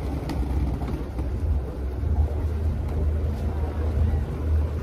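The Lagoon 440 catamaran's diesel engines running at low idle while the boat manoeuvres in to the fuel dock: a steady low rumble with some wind noise.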